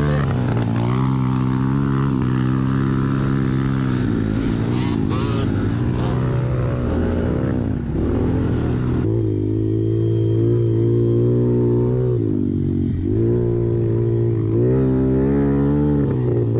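Off-road vehicle engine running under changing throttle, its pitch rising and falling again and again as it speeds up and slows. About nine seconds in the sound changes abruptly, the higher hiss dropping away.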